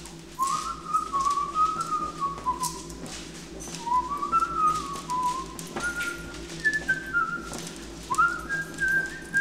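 A man whistling a casual tune in short phrases whose pitch steps up and down, over a low steady hum.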